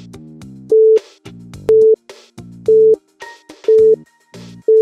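Quiz countdown timer beeping, one short loud beep about every second, over background electronic music with a beat.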